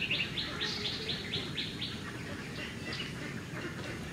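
A bird chirping in a quick, even series of about four short chirps a second, dying away after about two seconds into a few scattered fainter chirps.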